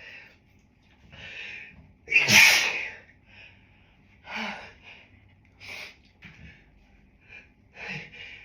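Allergic sneezing fit, set off by a dog: one loud sneeze about two seconds in, with smaller sneezes and sharp breaths before and after it.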